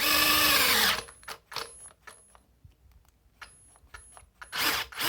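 Parkside Me PMBSA 4 A1 cordless drill with a brushless motor driving a 10 mm wood bit in second gear. It runs for about a second, falling in pitch as it bogs down and stops, then scattered clicks, then a second short run near the end that also dies away: the drill lacks the power for a 10 mm bit.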